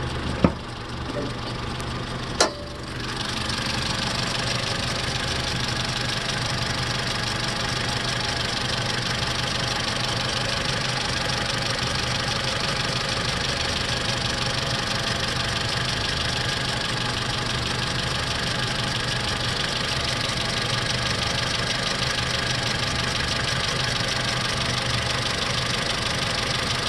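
A warmed-up Mitsubishi RVR's 4J10 1.8-litre four-cylinder petrol engine idling with a 'ka-ka-ka-ka' ticking from around the engine. The owner suspects either a returning fan-belt noise or tappet clearance gone out at 80,000 km, though he doubts the tappets because the noise is not worst on a cold start. Two sharp knocks come in the first few seconds, after which the engine sound is a little louder.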